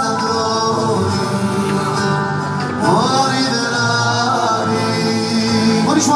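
Live Hasidic pop band music: a male singer over guitar and band, played through a concert sound system.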